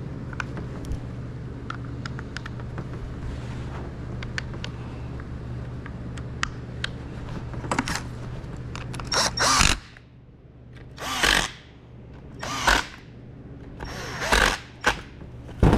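Cordless drill/driver running in short bursts, about seven, from about nine seconds in, driving the Torx screws that hold a Stihl HS56 hedge trimmer's starter cover. Before that, small clicks of parts being handled over a steady low hum.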